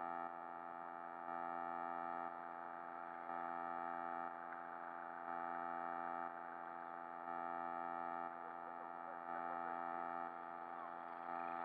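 Background electronic music: a sustained synthesizer chord of many steady tones, its loudness stepping up and down about once a second.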